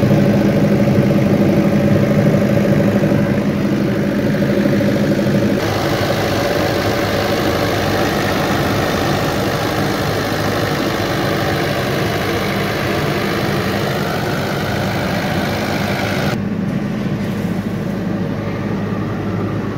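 Diesel engine of a 40 kVA Ashok Leyland silent generator set running steadily with an even hum. The sound changes abruptly a little over five seconds in and again near the end, where the recording cuts between takes.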